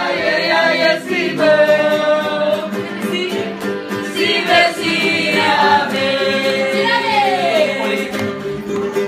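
Music with several voices singing together over steady held chords.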